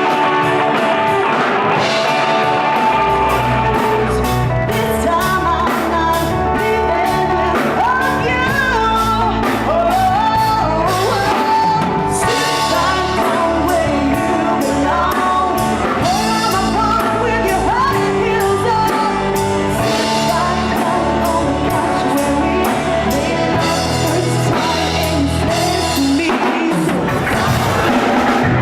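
A live band playing a rock-style song, with a singer over drum kit and guitar.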